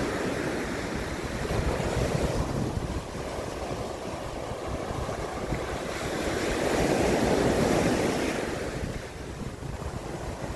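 Sea waves breaking and washing up on the shore, a surge swelling about two-thirds of the way through and easing off near the end, with wind buffeting the microphone.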